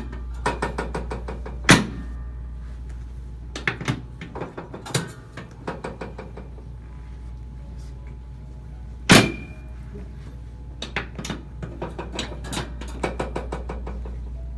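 Chiropractic drop table during a hip adjustment: a series of sharp clicks and knocks as the table sections are set, and two loud thunks about two seconds in and again about nine seconds in as the drop piece falls under the thrust. A steady low hum runs underneath.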